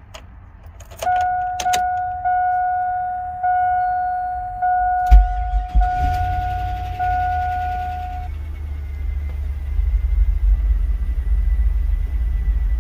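GM 5.3 V8 truck starting with a short crank at about five seconds and settling into a low, steady idle on its first start after the oil pickup tube O-ring replacement, while the dashboard warning chime dings about seven times, once a second or so, until shortly after the start. A faint steady whine comes in later.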